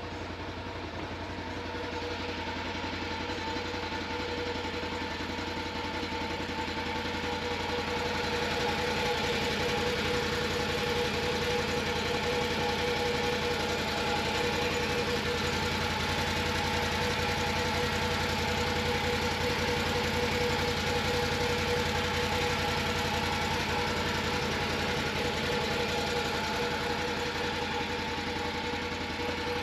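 Can-Am Defender HD10's Rotax V-twin engine idling steadily, run on a cool day to warm up and thin the oil before it is drained.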